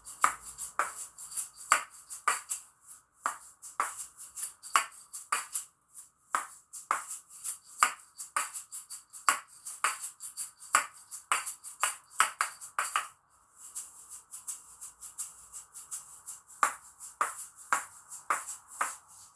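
A pair of asalato (kashaka shaker balls on a cord) being played in a quick rhythm: sharp clacks as the two shells strike together over the rattle of the filling inside. The playing stops briefly about thirteen seconds in and then starts again, recorded through a phone's built-in microphone.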